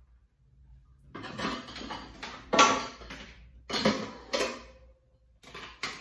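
Dishes and kitchenware clattering and clinking as they are moved and set into dishwasher racks: a run of knocks starting about a second in, loudest about two and a half seconds in.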